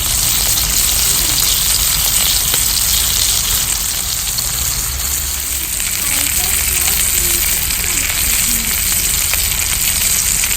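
Butter-basted chicken sizzling steadily on a hot stone.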